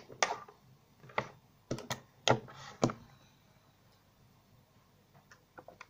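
A handful of light clicks and knocks from small objects being handled, about six in the first three seconds, then near quiet.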